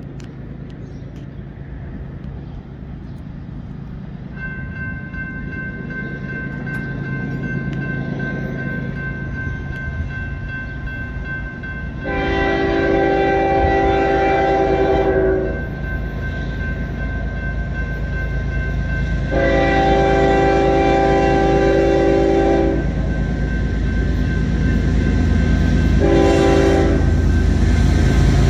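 Approaching Union Pacific diesel locomotive sounding its multi-chime air horn for the crossing: two long blasts, a short one, and the start of a final long one, the standard grade-crossing signal, over a low engine rumble that grows louder as the train nears. A steady ringing from the crossing's warning bell runs underneath from about four seconds in.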